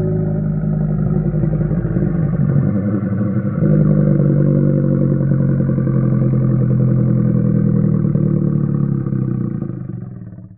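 Apatosaurus call sound effect: one long, low call at a steady pitch. It grows louder about three and a half seconds in and fades out at the end.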